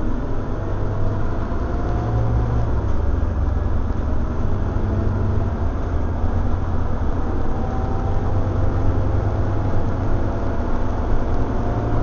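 Scania OmniCity single-deck bus heard from inside the cabin while on the move: a steady low diesel engine drone with road and body noise, and a faint whine that climbs in pitch a few times.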